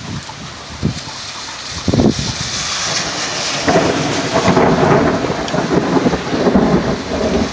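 Thunder from a cloud-to-ground lightning strike: a sharp crack about two seconds in, then a long rolling rumble through the second half. Wind-driven rain hisses throughout.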